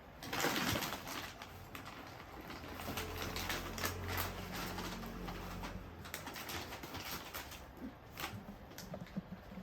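A plastic snack packet being torn open and handled, with a burst of tearing noise about half a second in, followed by steady crinkling and rustling. A low drawn-out tone sounds for a few seconds in the middle.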